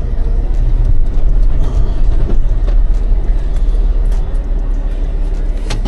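A delivery vehicle running, a steady low rumble, with a sharp click near the end.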